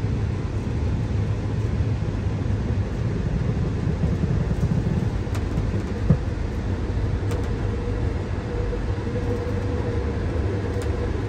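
Train running, heard from inside the passenger car: a steady low rumble with one short knock about halfway through, and a faint steady whine coming in near the end.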